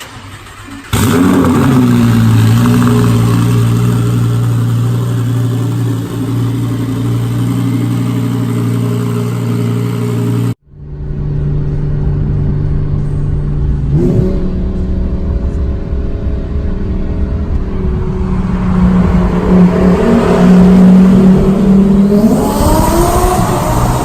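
Twin-turbocharged Lamborghini Huracan V10 engine running loud in two separate takes. In the first it starts suddenly and settles to a steady drone. After an abrupt cut midway it drones again, its pitch stepping up and then climbing as it revs near the end.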